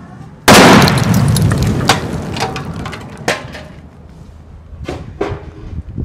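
A microwave oven packed with dynamite explodes about half a second in: one very loud blast that dies away over a few seconds. Several separate sharp cracks follow.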